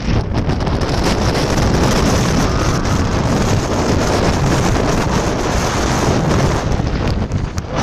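Strong hurricane-force wind buffeting the microphone in a loud, steady rushing rumble.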